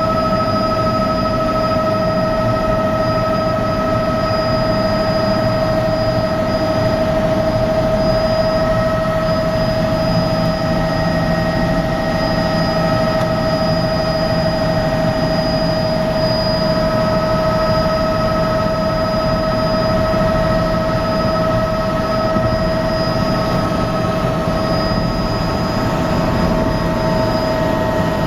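Helicopter in flight, heard from inside the cabin: a loud, steady engine and rotor drone with a constant whine running over it.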